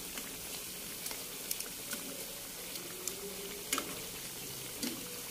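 Hot oil sizzling steadily around tape singkong (fermented cassava) fritters deep-frying in a pan, with scattered sharp pops and clicks as the fritters are turned with metal tongs, the loudest nearly four seconds in.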